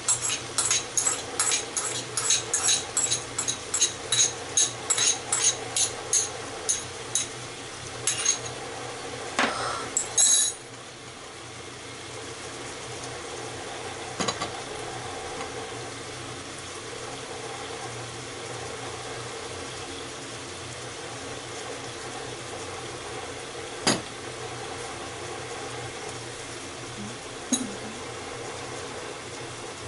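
A metal spatula clinking and scraping in a frying pan about two or three times a second as ginger pork is stir-fried, ending in a louder clatter about ten seconds in. After that the pan keeps frying with a steady low hiss, broken by a few single clinks of utensils.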